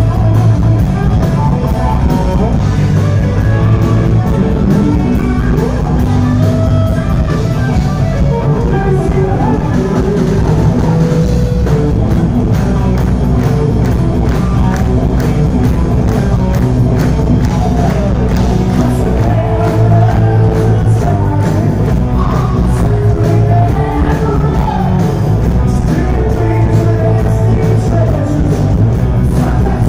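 Hard rock band playing live and loud: electric guitars, bass and drums under a male lead vocal, in a large hall.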